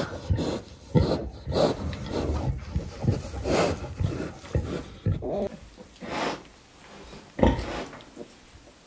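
Sow grunting in short, irregular low grunts while farrowing. The grunts come thick for about five seconds, then thin out, with one sharp grunt near the end.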